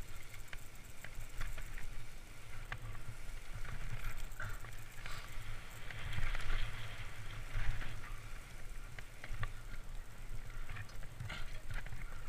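Trek Fuel EX 8 mountain bike riding fast down a rough dirt trail: wind rumbling on the camera microphone, crackling tyre and trail noise, and frequent clicks and rattles from the bike.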